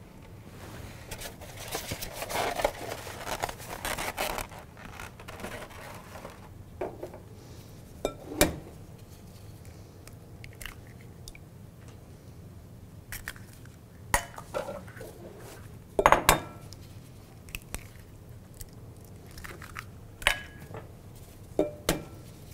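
Eggs being cracked one at a time on a glass mixing bowl: several sharp taps spaced seconds apart, with the shells crunching as they break. A few seconds of rustling handling noise near the start.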